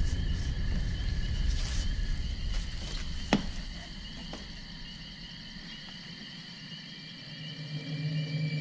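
Crickets chirping steadily in a night-time ambience, over a deep rumble in the first few seconds. A single sharp click sounds about three and a half seconds in, and a deep droning tone swells near the end.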